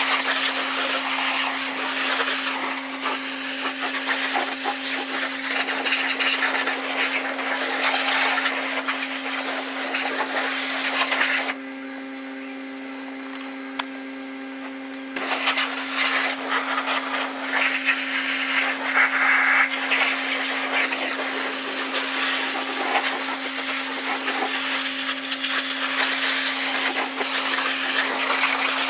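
Pressure washer jet spraying against a JCB Fastrac tractor's bodywork and tyres, a dense hiss over a steady hum. The spray stops for about three seconds near the middle, leaving only the hum, then starts again.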